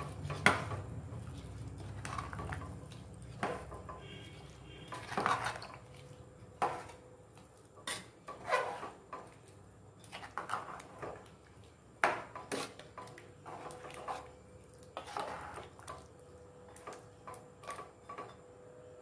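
A steel ladle stirring rice into gravy in an aluminium pressure cooker: irregular scrapes and knocks of metal against the pot. The sharpest knock comes about half a second in.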